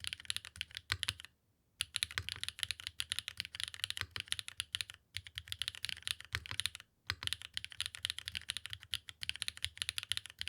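Fast typing on a mechanical keyboard with HMX Lanikai switches, GMK keycaps on an aluminium plate in a top and O-ring mount: a dense run of quick key clacks with a low thock under each press. The typing breaks off in brief pauses about a second in, at five seconds and at seven seconds.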